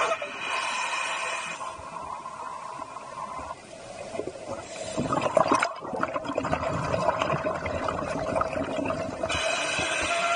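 Heard underwater: a scuba diver's regulator breathing, with exhaled bubbles gurgling in surges over a steady hum.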